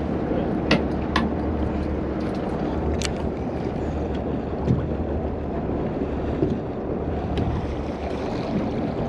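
Steady rumble of a boat sitting on the open ocean, with wind and water noise. A few sharp clicks come through over it as a fishing rod and reel are handled and line is reeled in.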